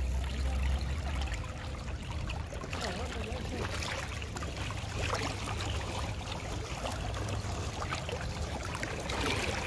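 River water flowing and rippling over a shallow stretch, a steady rushing, with a low rumble in the first second or so.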